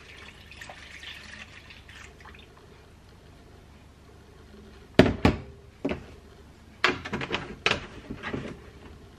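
Milk pouring from a measuring jug into a plastic mixing bowl, a soft splashing hiss over the first couple of seconds. About five seconds in come two sharp knocks, the loudest sounds, followed near the end by a run of lighter clatter as things on the counter are handled.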